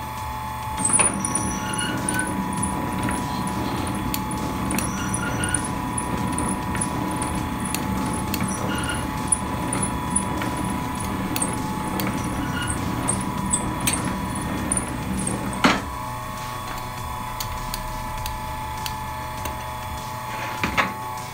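Soba noodle-making machine running: a steady mechanical rumble with a quick, regular light ticking, about two or three ticks a second. It starts about a second in and stops with a clack about three-quarters of the way through, leaving a steady hum.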